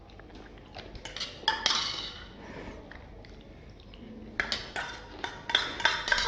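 Steel spoon clinking and scraping against a small steel katori bowl while food is spooned out: a few separate clinks about a second in, then a quicker run of clinks with a faint metallic ring near the end.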